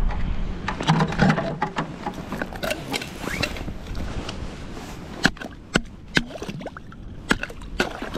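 Handling noise as a wooden hand-line winder is worked over an ice hole: scattered sharp clicks and rustling of gloves and clothing, with the line paying out off the winder into the hole. The clicks come more often in the second half.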